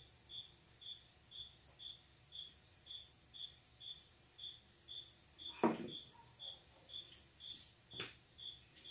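Crickets chirping at night at an even pace, about two chirps a second, over a steady high insect trill. Two short knocks sound about halfway through and near the end.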